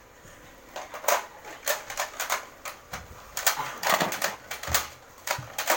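Nerf foam-dart blasters clicking and firing: an irregular run of sharp plastic clacks, several a second.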